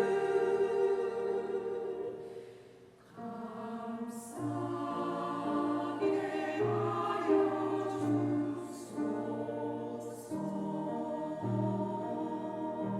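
Church choir singing the closing phrases of a hymn-anthem. The singing fades to a brief pause about two to three seconds in, then resumes more softly with held chords.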